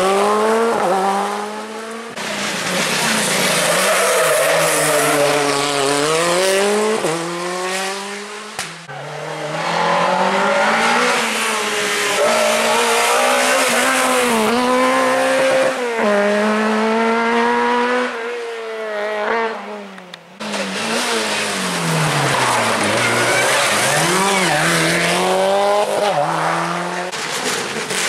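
Rally car engines, a Škoda Fabia, a Talbot Samba and a Subaru Impreza, passing one after another, each revving hard and dropping in pitch with gear changes. The sound breaks off suddenly three times as one car gives way to the next.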